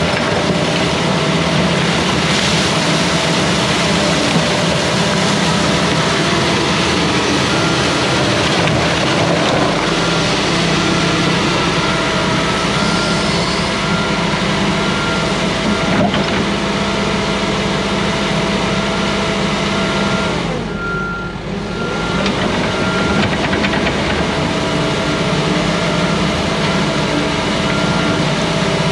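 Hyundai tracked excavator's diesel engine running steadily under hydraulic load as the bucket works in the water at the bank, with an intermittent high beeping over it.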